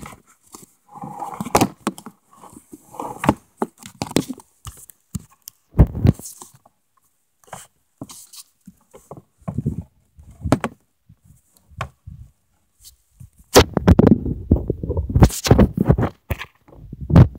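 Irregular knocks, thumps and scrapes from handling gear and the camera in a canoe, with a louder stretch of rumbling handling noise about three-quarters of the way through.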